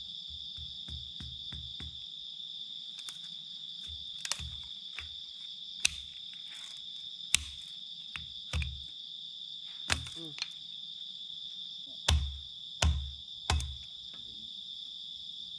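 Machete chopping into a roasted bamboo tube of khao lam to split it open: a series of irregular sharp knocks, with three heavy strikes close together near the end. Crickets chirp steadily underneath.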